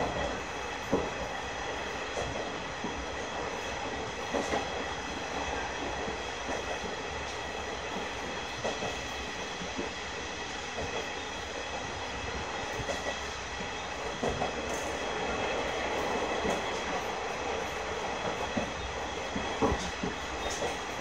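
KiHa 100 diesel railcar running, heard from inside its cab: a steady rumble of diesel engine and wheels on rail, with a set of steady high whining tones and occasional short clacks from the rail joints.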